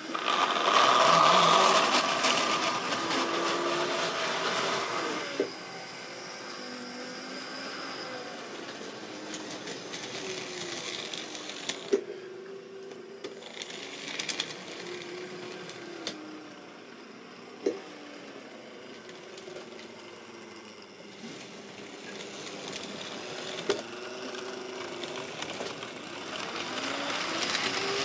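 Model railway trains running: the small electric motor of a locomotive whirring with a wavering hum as its speed changes, and the wheels rattling along the track with sharp single clicks over rail joints and points. It is loudest in the first few seconds and swells again near the end as wagons roll close past.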